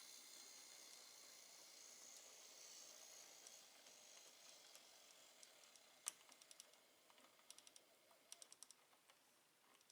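Faint high whine of a tiny Z-gauge model locomotive's 3-pole motor, fading away over the first few seconds; then a single sharp click about six seconds in, followed by several quick clusters of light ticks.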